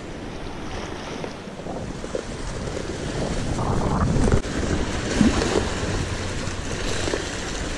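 Wind buffeting the microphone over the wash of the sea, with a few brief knocks about halfway through.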